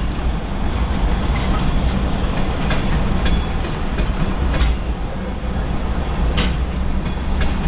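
Freight train tank cars rolling past a level crossing: a steady low rumble of wheels on rail with a few sharp, irregular clicks, heard from inside a car.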